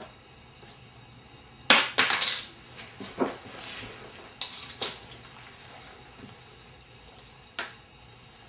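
Plastic magnetic letters clicking and clattering against a refrigerator door: a quick cluster of clicks about two seconds in, then a few single clicks, the last one near the end.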